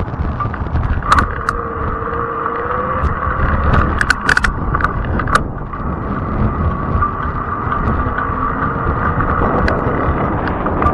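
Fat-tire e-bike in motion: wind buffeting the microphone over a low tyre rumble, with a steady high whine throughout and a few sharp clicks or rattles, a cluster of them about four seconds in.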